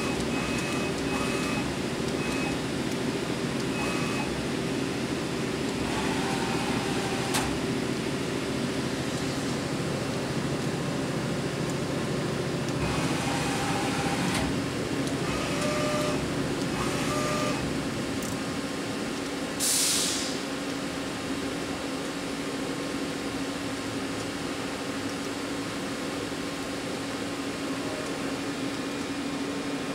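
Mori Seiki SL-3H CNC slant-bed lathe humming steadily under power, with a few short whines and a light click in the first half and a brief hiss about twenty seconds in. The lower part of the hum drops away shortly before the hiss.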